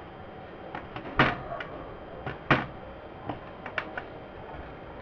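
Irregular clicks and knocks from hands handling the opened wireless microphone receiver's metal chassis and wiring, two louder knocks about a second and a half apart among several lighter clicks, over a steady hiss.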